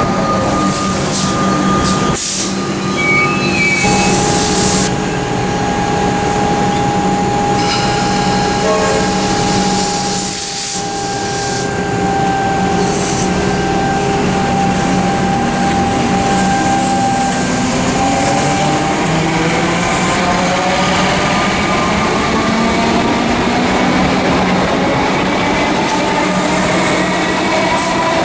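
Metro suburban electric train passing close by, with a loud rumble of wheels on the rails under several steady whining tones. In the last third, whining tones rise in pitch.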